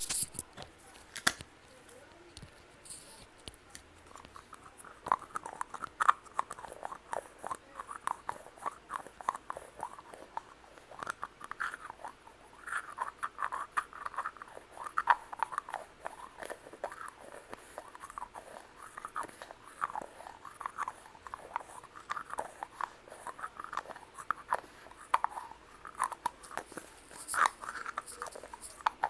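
Close-microphone ASMR sounds: a sharp click at the start and another about a second later, then, from about five seconds in, a quick, irregular run of small clicks and taps.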